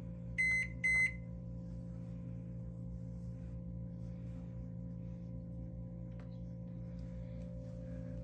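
Two short high beeps from a microwave oven's keypad, about half a second apart, over a steady electrical hum.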